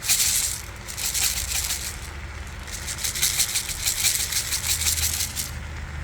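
Black pepper being dispensed over the stir-fried udon: dense runs of quick, rattling clicks in several spells, with a pause about two seconds in.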